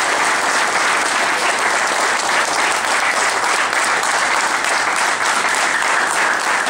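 A large audience applauding, a steady, dense clapping.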